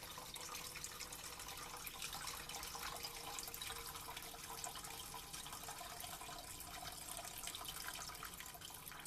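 Liquid from a home-canned quart jar of dog food pouring and trickling into a pot of water and rice, dying away near the end.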